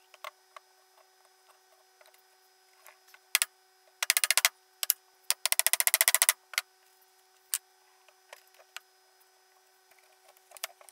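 Tools and hardwood parts handled on a wooden workbench during a glue-up. There are scattered light knocks and taps, and two short runs of quick rattling clicks a little before and after the middle.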